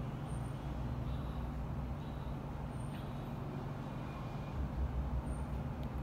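Steady low hum with an uneven rumble underneath, with no distinct events.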